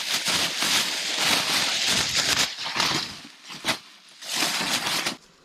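Thin plastic bag rustling and crinkling as a hunk of venison is pushed into it: a long spell of rustling, then a shorter one near the end.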